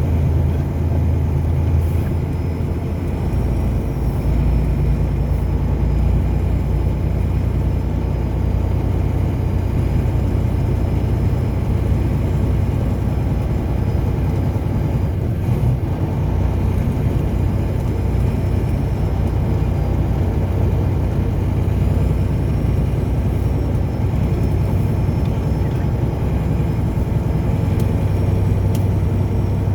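A car driving, with a steady low rumble of engine and road noise that does not change.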